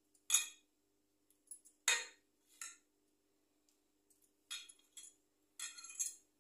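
Steel ladle clinking against a steel bowl as semolina batter is stirred and scooped: several sharp, irregular clinks, the loudest just after the start and at about two seconds.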